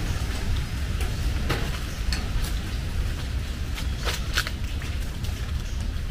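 Outdoor ambience: a steady low rumble with scattered, irregular light ticks and taps.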